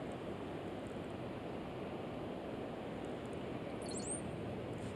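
Steady low outdoor background noise by the water, with a brief high chirp about four seconds in.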